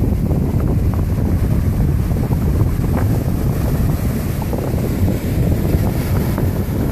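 Wind buffeting the microphone in a steady low rumble, over the wash of sea waves.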